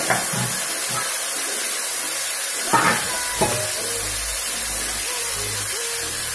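Grated coconut, green chilli and shallot mixture sizzling in hot coconut oil, a steady hiss, with two short louder sounds about three seconds in.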